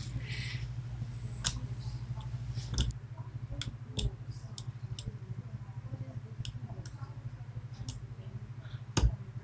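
Small sharp clicks and taps of a lock pick and tension tool working in a 5-pin Medeco Biaxial lock cylinder, irregular and spaced out, with a louder click near the end, over a low steady hum.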